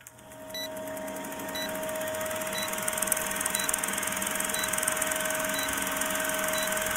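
Old film projector running: a fast, even mechanical clatter over a steady hum, with a faint short tick about once a second as on a film countdown leader. It fades in over the first second or two.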